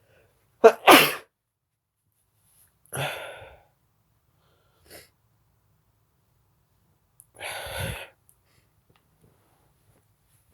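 A person sneezes hard about a second in. Two quieter breathy sounds follow, one at about three seconds and one near eight seconds.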